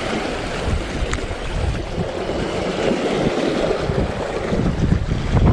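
Strong wind gusting over the microphone, with choppy waves splashing on the water.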